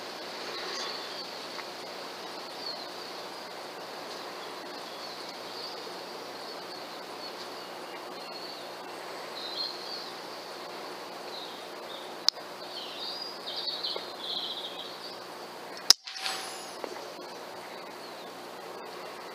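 Small birds chirping over a steady outdoor hiss, then a single sharp crack about three-quarters of the way through: the shot of an FX Streamline PCP air rifle. A smaller click comes a few seconds before the shot.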